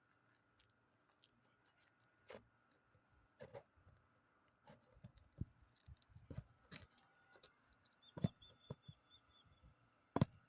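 Scattered faint clicks and knocks, irregularly spaced, as a tool pries up asphalt shingles and pulls out their nails. The sharpest knocks come about eight and ten seconds in.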